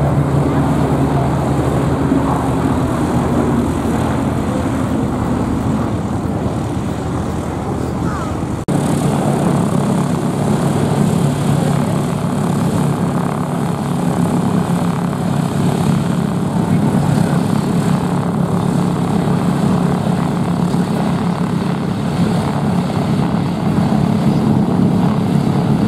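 Piston-engined propeller aircraft flying overhead. In the first part the engine note falls in pitch as an aircraft passes. After an abrupt cut about a third of the way in, a single biplane's engine drones steadily.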